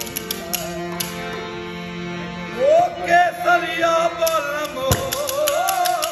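Live Indian folk singing with a harmonium: the harmonium holds steady chords, and a male voice comes in loudly with an ornamented, wavering melody about two and a half seconds in. Sharp hand claps keep the beat.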